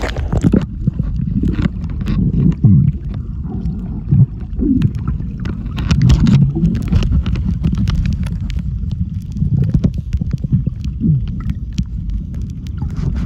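Muffled underwater sound picked up by a camera in a waterproof housing while snorkeling: a dull rumble with bubbling gurgles and scattered clicks and knocks.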